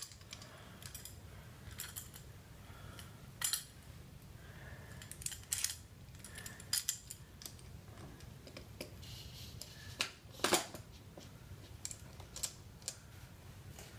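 Small metal clicks and clinks from a footpeg bracket and its bolts being handled and fitted against a dirt bike's frame: a dozen or so scattered sharp clicks over a faint low hum, the loudest about ten seconds in.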